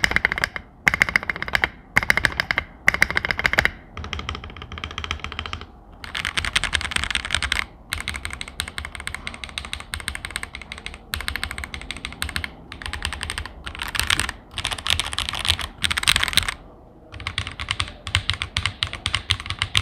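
Fast typing on an Akko ACR Pro 75 mechanical keyboard with Akko V3 Cream Yellow linear switches and clear keycaps, in quick runs broken by short pauses. It has a clacky "tak, tak" rather than a thock and is a little high-pitched, perhaps because of the clear keycaps.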